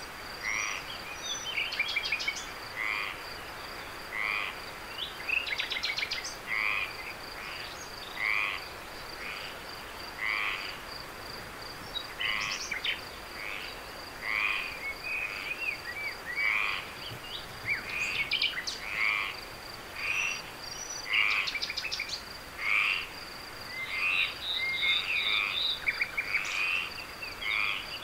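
Frogs calling in a chorus, short croaking calls repeating every second or so, over a continuous high insect trill in the background.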